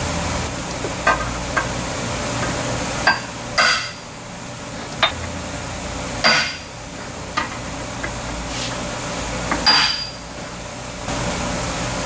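Hammer blows driving dowel pins down into a Pontiac 400 V8's cast-iron block: lighter taps, then three hard metal strikes about three seconds apart, each with a short ring.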